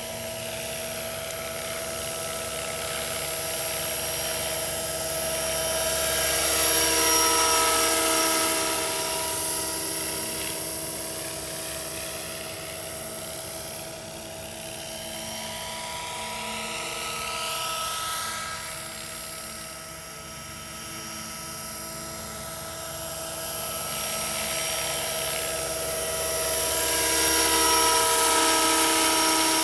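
Scale radio-controlled AS350 model helicopter in flight: a steady high whine over several steady tones. It grows louder as the helicopter passes close, about seven seconds in and again near the end, and fades as it moves away in between.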